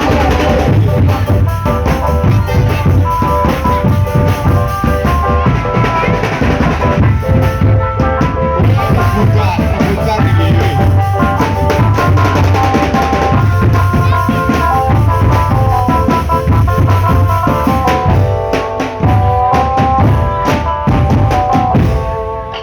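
Drum band playing: bass drums and snare drums beating under a steady melody line. The music drops away near the end.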